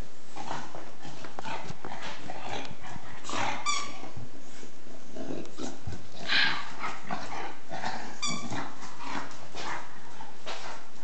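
Shar-pei puppy making close-up dog noises while playing, a run of short breathy bursts and clicks, with two brief high squeaks, one about four seconds in and one about eight seconds in.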